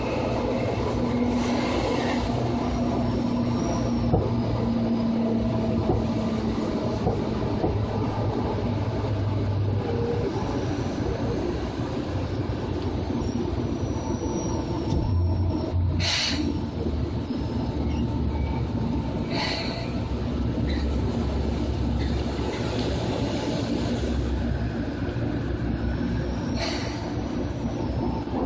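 Running noise inside an electric train's motor car, MoHa 2375 of set 2075F: a steady hum of traction motors and wheels on rail. Faint high wheel squeals come and go, and a few sharp knocks sound in the second half.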